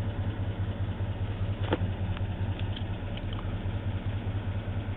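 2004 Chevy Silverado engine idling with a fast, even ticking knock, with one sharper click just under two seconds in. The owner is unsure whether it is a bad lifter or a rod knocking.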